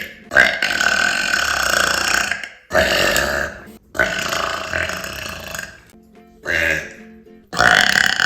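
A woman burping loudly, five burps in a row with short silences between them; the longest are drawn out for about two seconds and one near the end is short.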